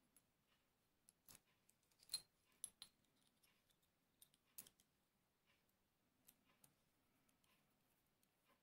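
Faint, scattered metallic clicks and taps of small steel parts of a Circassian miquelet flintlock being fitted together by hand, the loudest click a little over two seconds in.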